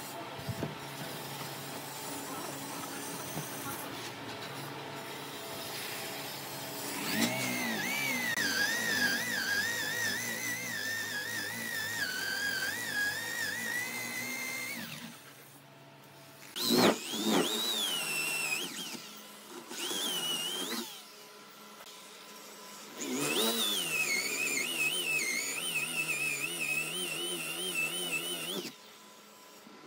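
Corded electric drill boring into a hardwood block with a large wood-boring bit, its motor whining and wavering in pitch under load. It starts after a steady lower hum, runs for about eight seconds, gives a couple of short bursts, then runs again for several seconds before stopping just before the end.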